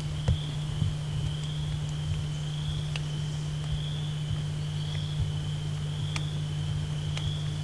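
Insects trilling steadily in a high, slightly wavering drone, over a steady low hum, with a few faint clicks scattered through.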